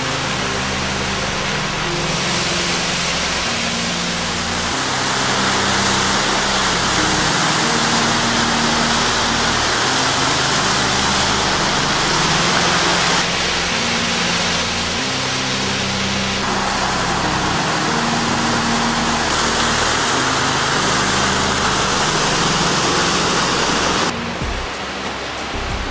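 Background music with slow-changing low held notes, laid over the steady rush of a waterfall; the water noise drops away about two seconds before the end while the music goes on.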